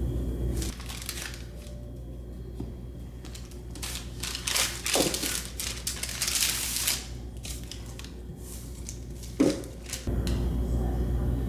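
Kitchen handling noise from food preparation: rustling, crinkling and light knocks of packaging and utensils, busiest in the middle, with two sharp clacks. A steady low hum stops under a second in and comes back about ten seconds in.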